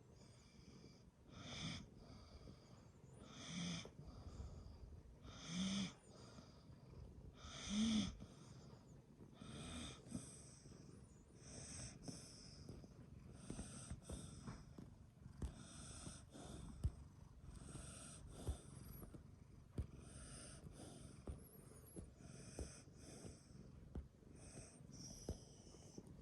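A sleeping dog snoring: a wheezy breath about every two seconds, the first few loudest, some with a low pitched note. A few short clicks in the second half.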